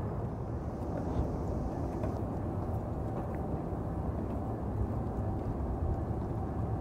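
NJ Transit electric train with multilevel coaches running: a steady low rumble with a faint steady whine above it.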